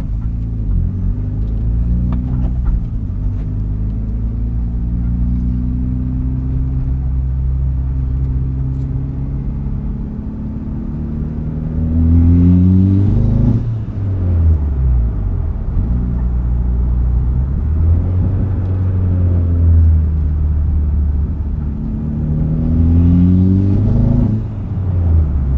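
Mitsubishi Lancer Evolution X's turbocharged 2.0-litre four-cylinder with a turbo-back exhaust running at a steady speed, then pulled hard twice, engine speed rising for a couple of seconds and cutting off suddenly each time. At wide-open throttle it seems to be misfiring just past 3,000 rpm.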